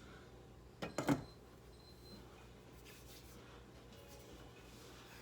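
A short clatter of cookware, three or four quick knocks close together about a second in, over a faint steady hum.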